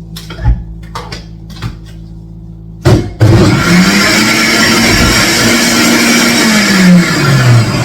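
A few clicks and knocks, then an electric kitchen blender switches on about three seconds in and runs loudly, its motor hum dropping in pitch near the end before it cuts off.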